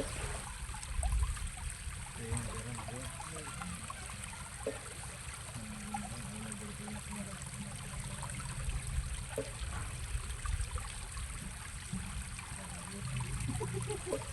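Steady running water of a stream.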